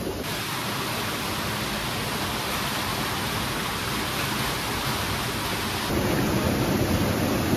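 Small waterfalls pouring over rocks into a stream pool: a steady rush of falling water, louder and fuller from about six seconds in.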